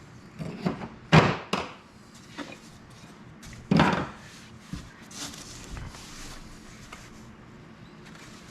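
Loose wooden beehive frame parts being handled and set down: a few sharp wooden knocks, the loudest about a second in and again near the middle, with softer clatter and rustling after.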